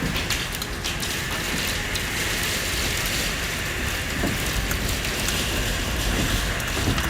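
Heavy rain pouring in strong wind, a dense steady hiss over a low rumble.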